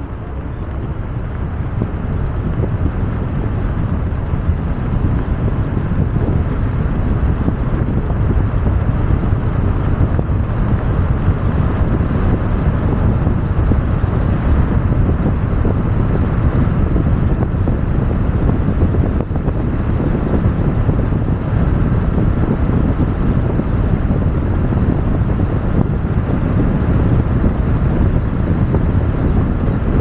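Steady road and wind noise from a car driving at speed, a deep rumble with wind buffeting the microphone, growing louder over the first couple of seconds and then holding steady.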